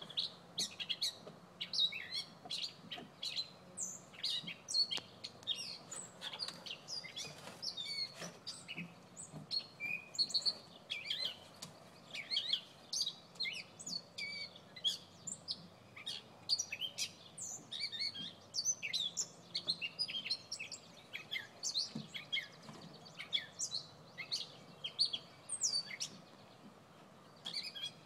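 A small bird chirping and tweeting without a break, short high calls coming several times a second.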